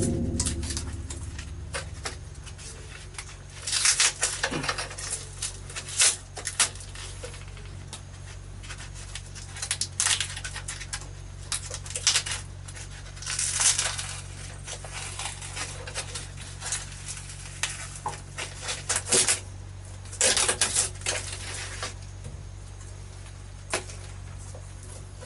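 Tape and insulation sheeting being peeled and torn off a water pipe by hand, in irregular bursts of ripping and crackling with small clicks and knocks, over a steady low hum.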